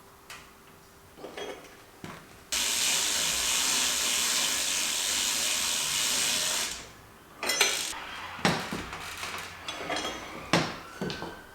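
Bicycle being assembled: a few light clicks, then a loud steady buzz that lasts about four seconds and cuts off, followed by a string of sharp mechanical clicks and knocks.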